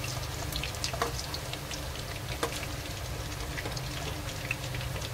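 Chicken-and-potato kofta balls sizzling in hot oil in a kadhai, with scattered crackles and a few sharper ticks as a metal spoon turns them. Under it runs a steady low hum.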